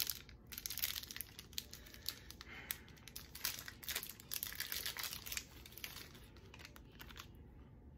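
Plastic wrapper of a Jeżyki Classic chocolate bar crinkling and tearing as it is handled and opened by hand, dying away near the end.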